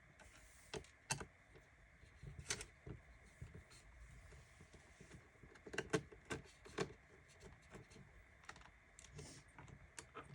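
Faint, irregular clicks and taps of a small Phillips screwdriver and screws against the plastic screen bezel of a Lenovo X220 laptop as the bezel screws are undone.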